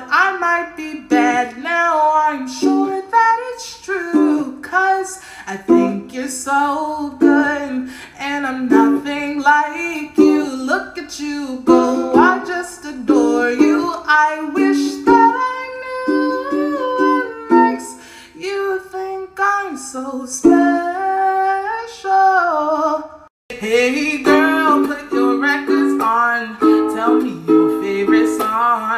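A woman singing while strumming a ukulele. Near the end the song cuts off with a brief gap, and another song starts with ukulele and singing.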